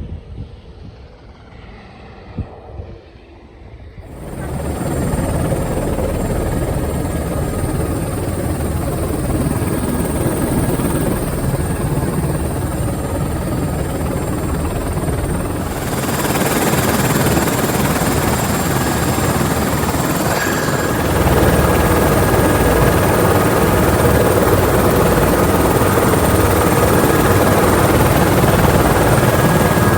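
Helicopter running, a steady loud rotor-and-turbine noise with a thin high whine. It cuts in suddenly about four seconds in after a quieter stretch, and grows louder in two steps, about 16 and 21 seconds in.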